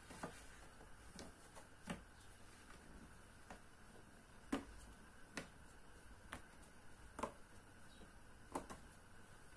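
Near silence: a faint steady hiss with about ten light, sharp clicks and ticks at irregular intervals.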